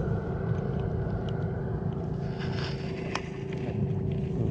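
Wind rumbling on an action-camera microphone over open water, with a steady low hum under it and a few small clicks, the clearest about three seconds in.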